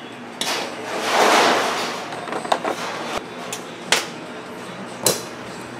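Hand tools and metal parts being handled at a chainsaw crankcase during a Helicoil thread-insert installation: a rustling swell lasting about two seconds, then several sharp clicks and taps of metal.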